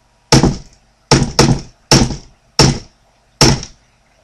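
Hammer driving nails, six blows at uneven spacing, each with a short ring after it.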